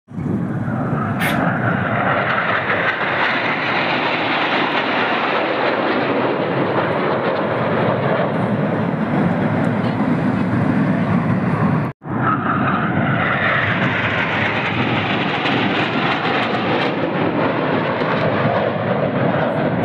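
Jet engines of a formation of aerobatic display jets flying past overhead: a loud, steady rush of engine noise. It cuts out for an instant about twelve seconds in.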